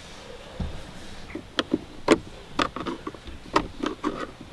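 Screwdriver backing out a screw from the plastic rear boot-side trim panel of a Honda Civic EJ9, making a series of sharp, irregular clicks.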